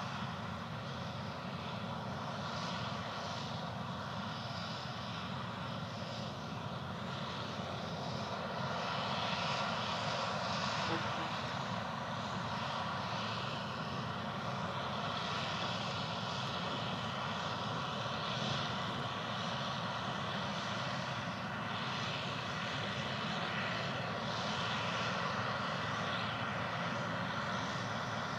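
A large engine running steadily: a continuous drone with no breaks, a little louder from about nine seconds in.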